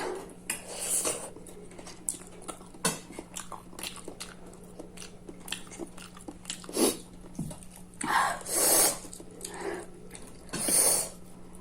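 Close-up eating sounds: chewing and biting with small clicks, and a few short louder bursts a couple of seconds apart, over a steady low hum.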